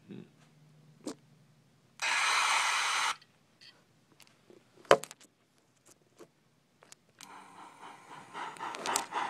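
Sound decoder in a model B&O 0-10-0 steam locomotive (TCS WOW Sound) playing steam sounds through its small speaker: a low hum with a few clicks, a loud hiss about two seconds in that stops a second later, a sharp click near the middle, then steam-exhaust sound building over the last two seconds as the stalled locomotive is nudged by hand.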